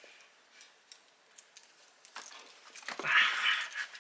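Light metallic jingling and rustling of a dog's collar and lead hardware being handled: scattered faint clicks at first, then a louder jangle in the second half.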